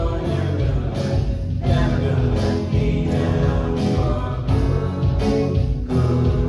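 Worship band music with group singing: a contemporary Christian song with a steady beat.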